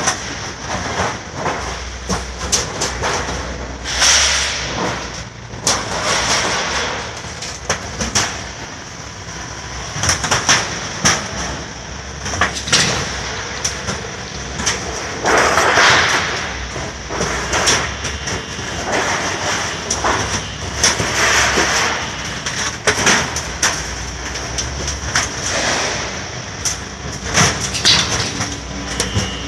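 Roofing-sheet roll-forming machine running as an aluzinc-coated steel sheet feeds through its forming rollers: a steady low hum with frequent irregular clanks and rattles, swelling louder every few seconds.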